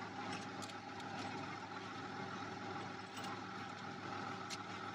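Truck diesel engine idling steadily, with a few light clicks over it.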